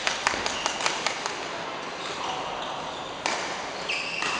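Court shoes squeaking on an indoor badminton court floor, with a quick run of sharp taps in the first second or so and a couple of single taps later.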